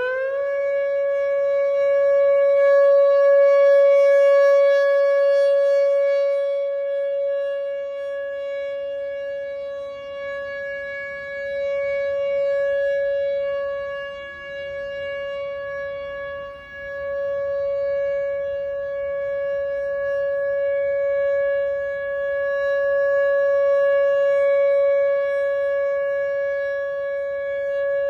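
Outdoor tornado warning siren sounding its steady tone in a test: it finishes winding up to full pitch just after the start, then holds one high, unwavering note, its loudness slowly swelling and fading several times.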